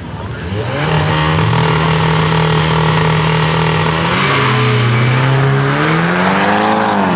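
Drag-racing car engine revving hard. It climbs about a second in and holds a steady high note, then drops in pitch about four seconds in and climbs again, as at a gear change.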